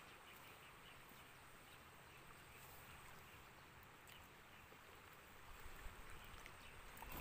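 Near silence: faint outdoor ambience, with a low rumble rising near the end.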